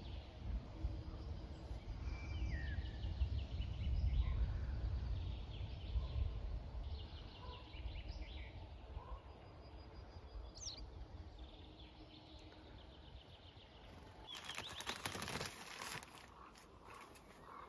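Small birds chirping and calling outdoors over a low rumble that is strongest in the first half. A short burst of noise about three-quarters of the way through.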